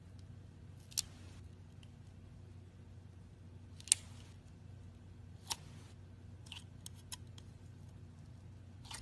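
Clear slime being handled, giving a few sharp pops and clicks spaced a second or more apart, the loudest about four seconds in, over a low steady hum.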